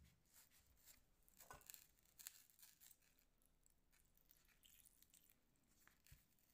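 Faint crackling, scraping and clicks of a knife blade cutting through a raw mackerel's skin, flesh and backbone on a wooden board, with two louder crunches about one and a half and two and a quarter seconds in.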